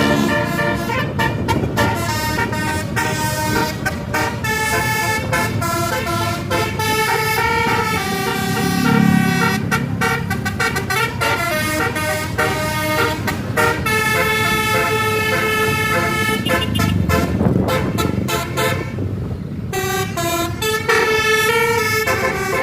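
Bus telolet horn, a multi-tone air horn, playing a melody in quick steps from note to note with short breaks, over a low steady rumble of the bus and road.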